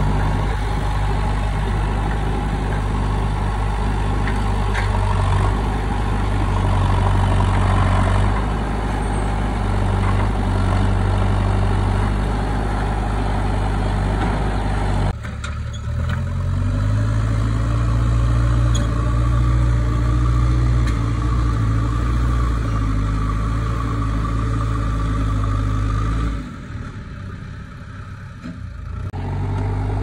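JCB 3DX backhoe loader's diesel engine running under load as the front bucket pushes and scoops soil. The sound changes abruptly about halfway through and turns briefly quieter near the end.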